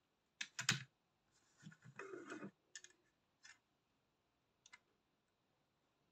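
Sharp clicks and knocks of a model bus being picked up and handled, with a short scraping rustle about two seconds in and a few fainter clicks after.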